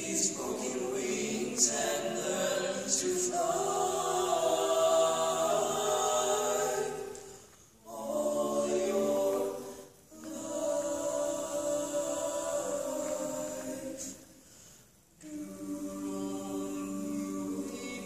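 Male barbershop quartet singing a cappella in close four-part harmony, holding sustained chords. The sound drops away briefly between phrases about eight, ten and fifteen seconds in.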